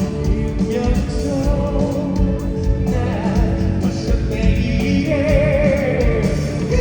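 A band playing live with a singer holding long, wavering notes over a steady beat, at a sound check.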